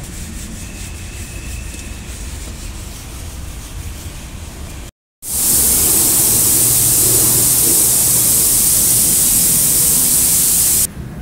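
Steady low rumbling noise, then, after a brief cut, a loud, steady high hiss of pressurised spray during engine-bay cleaning that runs for about six seconds and stops abruptly.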